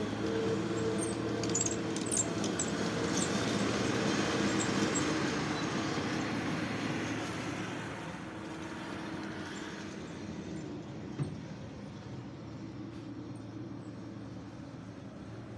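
Skid steer engine running under load, with a few sharp metallic clinks in the first few seconds; its sound eases off about eight seconds in, and a single knock is heard about eleven seconds in.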